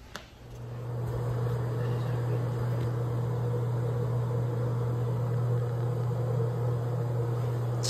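A steady low machine hum that comes up about half a second in and then holds level.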